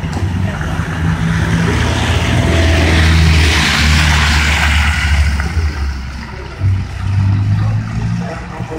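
A minibus driving past close by on a snowy, slushy road: its engine hum and the hiss of its tyres through the slush swell to a peak about three to four seconds in, then fade away.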